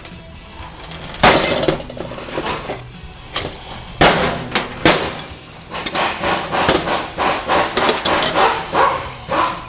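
Metal parts of a Ford 5R110W automatic transmission clinking and knocking as they are handled during teardown. There are sharp knocks about a second in and again around four and five seconds, then a quick run of clattering clinks.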